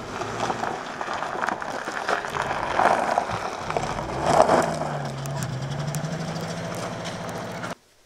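A car engine running steadily, with a low hum that shifts slightly in pitch, and scattered knocks and clatter; it cuts off suddenly near the end.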